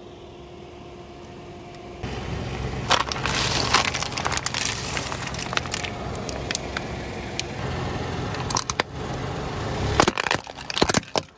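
A car tyre slowly rolls over and crushes a plastic clamshell container of water beads, the plastic crackling and cracking over the car's low engine hum. Near the end, hollow plastic toys give a few loud sharp cracks as they break under the tyre.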